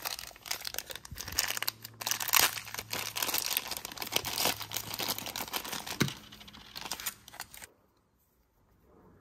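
Thin clear plastic bag crinkling and rustling as it is handled and opened and a small plastic Sonic figure is pulled out. The crinkling stops near the end.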